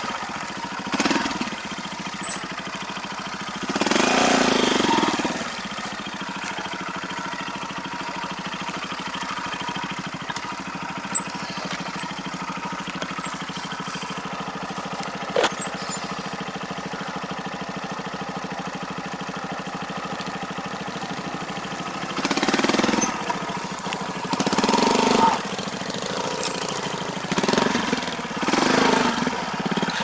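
Trail motorcycle engine running steadily at low revs, with the throttle opened in short bursts about four seconds in and several times in the last eight seconds. Two brief sharp clicks come in the steady middle part.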